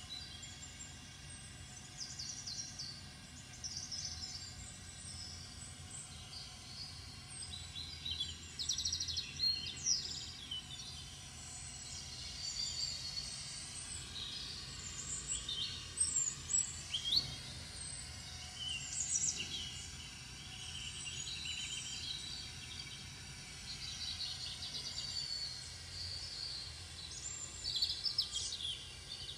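Small birds chirping and singing: many short high chirps, trills and quick rising and falling notes overlapping, over a steady low background hum.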